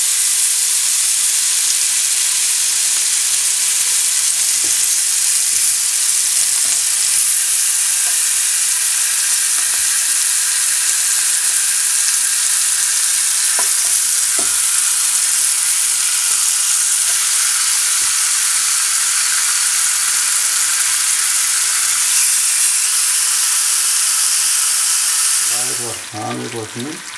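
Marinated ribs sizzling loudly in hot oil on a ridged grill pan, a steady frying hiss as the pieces are laid in one after another, with a few faint knocks. The sizzle drops away sharply near the end.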